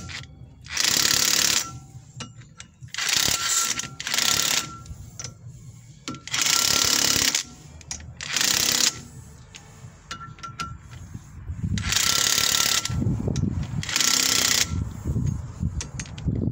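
Cordless electric impact wrench hammering in about seven short bursts of roughly a second each. It is driving long high-tensile M10 bolts through the brake disc to push a worn front wheel bearing off the hub shaft.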